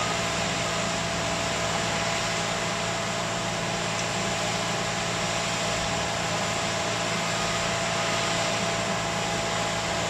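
Diesel engine of a front-end wheel loader running steadily as it carries a bucketful of snow.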